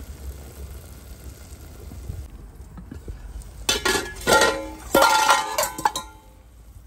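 Aluminium cooking pot clanking and scraping with a ringing metallic tone, in a cluster of loud strikes lasting about two seconds in the second half.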